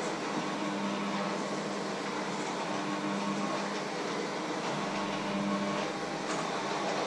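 Steady mechanical hum with a hiss over it, like a running appliance or fan, with a couple of light clicks near the end.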